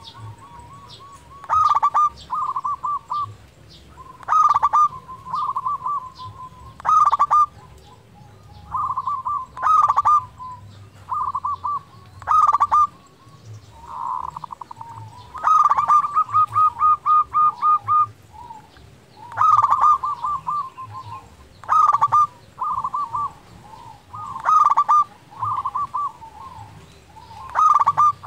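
Zebra dove (perkutut) singing: short phrases of rapid staccato coos repeated every second or two, with one longer run of evenly spaced notes midway. Faint high chirps sound behind it.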